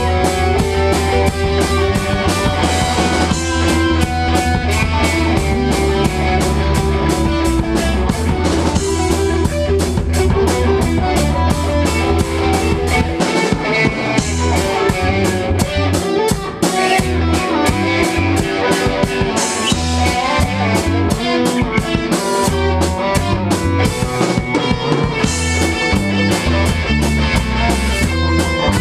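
A small rock band playing live in a room: electric guitars over a drum kit keeping a fast, steady beat. A held low bass note gives way to choppier bass notes about thirteen seconds in.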